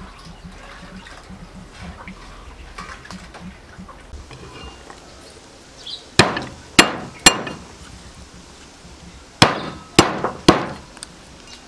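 A metal cleaver whacking garlic cloves against a wooden chopping board to crush them: six sharp strikes with a short ring, in two groups of three about half a second apart, starting about six seconds in.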